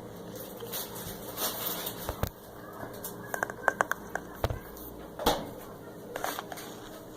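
A few light knocks and a quick run of small clicks, with a low thump about two seconds in, from handling a spice jar and measuring spoon while measuring out chili powder.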